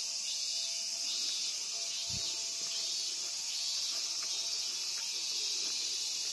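Dense chorus of summer insects, a steady high-pitched drone with no pause. A soft low thump sounds about two seconds in.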